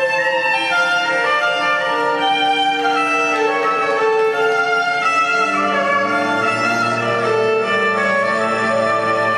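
Orchestral music with a violin carrying the melody over sustained string chords; lower string notes come in about six seconds in.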